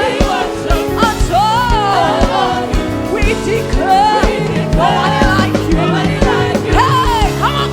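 Live gospel praise music: voices singing over a band with a steady drum beat and bass.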